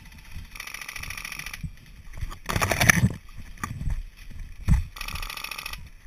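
Two bursts of airsoft gunfire, about a second each, one near the start and one near the end, with a louder short rattle in between. Low bumps of movement run under it.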